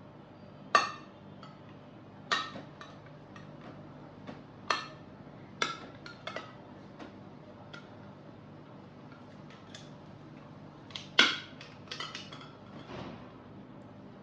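A spoon clinking against a small jar in irregular taps, each a sharp strike with a short ring. The two loudest come about a second in and again around eleven seconds.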